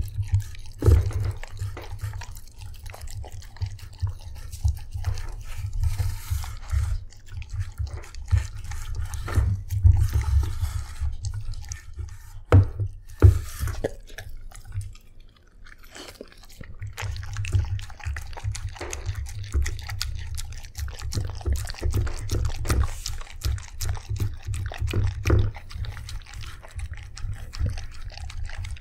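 A dog eating wet food from a stainless steel bowl close to the microphone: wet slurping, lapping and chewing. About halfway through it lifts its head and the eating stops for a couple of seconds, then starts again.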